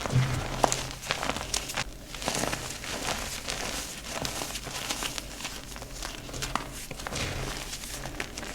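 Dyed gym chalk being crushed and crumbled, giving dense, irregular crunching and crackling.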